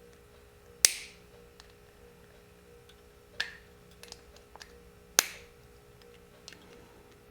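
Small metal tools clicking against a vintage motorcycle carburettor while its small security retaining pin is worked out. Two sharp, ringing clicks come about a second in and about five seconds in, with a lighter click between them and faint ticks around them.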